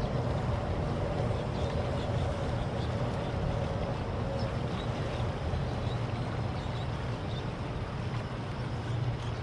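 Steady low rumble of distant traffic, with a faint hum that fades out about four seconds in.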